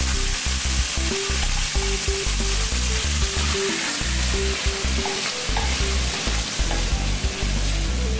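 Schmand (sour cream) sizzling in a hot stainless steel pan with the browned pan juices, stirred with a metal fork as it melts into a sauce. The hob is off, so the sizzle comes from the pan's own heat.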